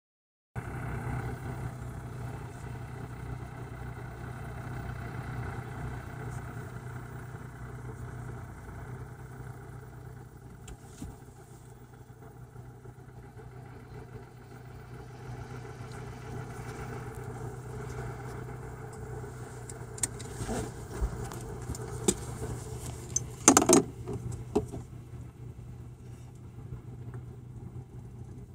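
Steady low hum of an idling vehicle engine. A few sharp clicks and knocks come near the end, the loudest about three-quarters of the way through.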